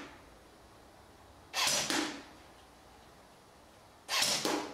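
Crosman Game Face GF460 electric airsoft rifle with a metal gearbox firing two single shots, about two and a half seconds apart.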